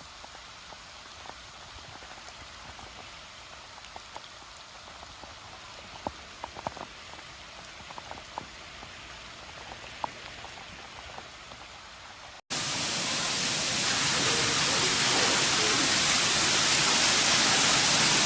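Steady rain with scattered drips and taps. About two-thirds of the way through it cuts abruptly to a much louder, steady rush of heavy rain and water.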